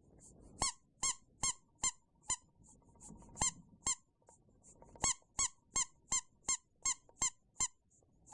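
A rubber bath duck squeaked over and over in short, sharp squeaks, mostly two or three a second, with a brief pause about halfway through.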